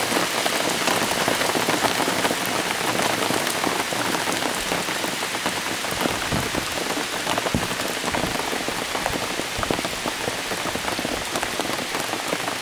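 Steady rain, with close drops pattering on the roof of a golf cart. A few soft low thumps come now and then.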